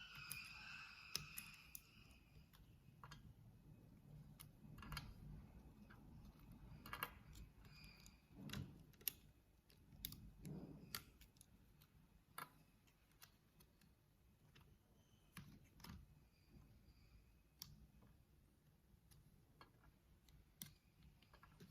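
Scattered, irregular faint clicks and taps of keyboard parts being handled and taken apart, with a few louder knocks around the middle.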